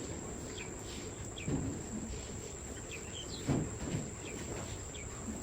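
Small birds chirping repeatedly over a steady high-pitched insect-like drone, with a couple of low thumps about a second and a half and three and a half seconds in.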